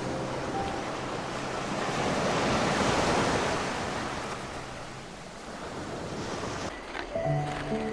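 Surf washing in: a rushing swell that rises to a peak about three seconds in, then fades. Music notes end in the first second and a new piece of music starts near the end.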